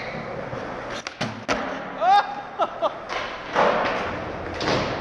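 Skateboard thuds and slams during tricks on a microwave: several sharp knocks about a second in, then noisy rushes of board and wheels later on. A short rising vocal cry comes a little after two seconds in.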